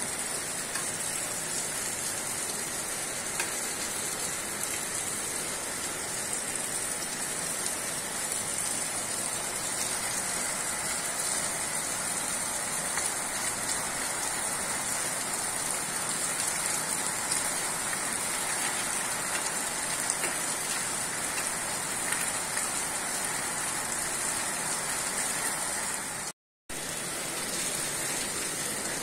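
Steady rain from a tropical storm falling, an even hiss with no letup. It cuts out completely for a split second near the end.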